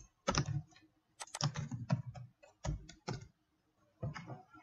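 Computer keyboard typing in about four short bursts of keystrokes, with brief pauses between them.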